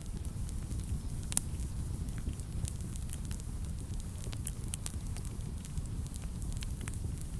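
Wood fire burning in a fireplace, crackling: a steady low rumble of flames with frequent sharp pops, the loudest about a second and a half in.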